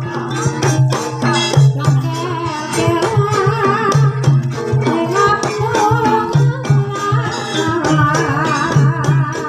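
Live ebeg dance music from a Javanese gamelan ensemble: drum strokes and metallic percussion in a steady beat over a low sustained tone, with a wavering high melody line.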